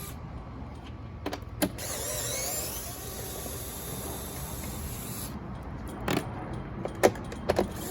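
Scattered sharp clicks and knocks of a 10 mm socket wrench and loosened metal nuts as a C7 Corvette's stock rear spoiler is unbolted, over a low steady hum. There are a couple of clicks about a second in and a cluster of three or four near the end.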